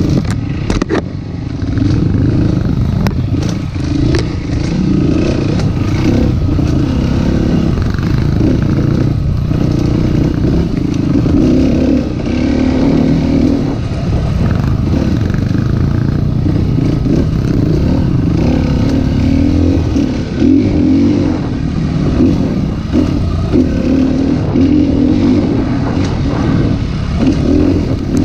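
Dirt bike engine running while ridden over rough ground, the throttle rising and falling. Occasional knocks and clatter of the bike over the bumps.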